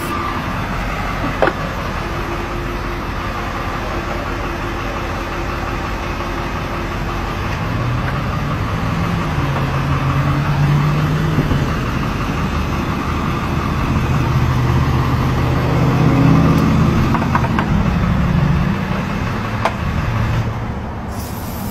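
Steady road traffic noise, with passing vehicles' engine hum swelling louder twice, and a few faint clicks.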